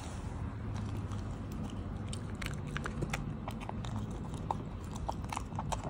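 A small poodle eating from a stainless steel bowl: quick clicking and crunching as it chews chopped vegetables and chicken and its mouth knocks the bowl, growing busier from about two seconds in.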